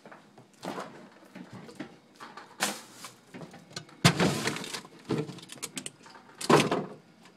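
Rummaging in a refrigerator: a plastic drawer sliding and food packages rustling and knocking in irregular bursts, the loudest about four seconds in.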